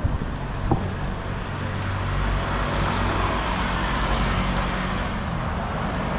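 A car passing close by in street traffic: engine hum and tyre noise that swell through the middle and ease off near the end. A short sharp click sounds shortly after the start.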